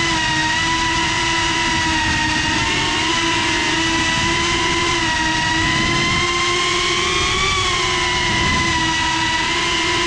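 FPV quadcopter's motors and propellers whining steadily as it circles, heard from the camera mounted on the drone itself; the pitch wavers up and down a little with the throttle.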